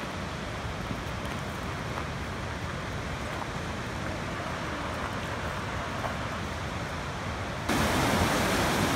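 Steady rush of the Clarks Fork river running high and white with spring snowmelt. Near the end it jumps suddenly louder as a closer recording of the rapids cuts in.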